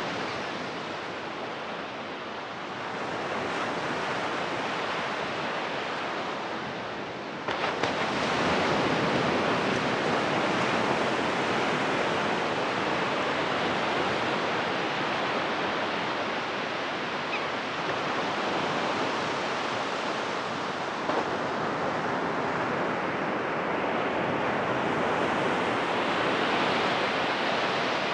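Ocean surf on a sandy beach: waves breaking and washing up the shore in a steady rush, which grows suddenly louder about seven seconds in and stays loud.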